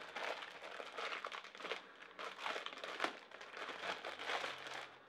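Clear plastic wrapping crinkling in irregular bursts as it is pulled off a new motorcycle air filter by hand.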